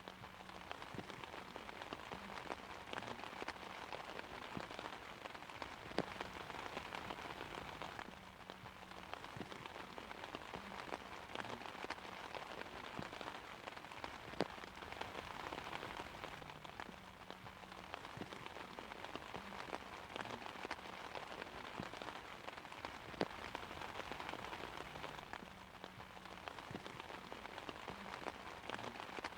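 Steady rain falling on an umbrella: a dense even patter of drops, with a few louder single drops standing out, no thunder.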